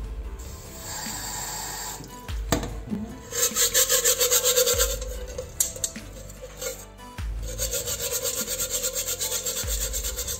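Steel scouring pad scrubbing inside a metal mess tin in fast back-and-forth strokes, coming in spells of a second or two with short pauses between. It is scouring a dark brown crust off the tin's inner wall.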